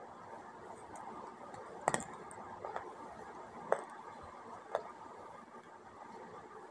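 Multani mitti (Fuller's earth clay) being bitten and eaten: four brief sharp crunches about a second apart, the first the loudest, over a steady low hiss.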